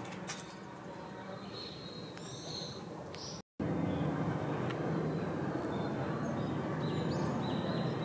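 Steady outdoor background hiss with a few short, faint bird calls. The sound drops out for a split second about three and a half seconds in and comes back louder.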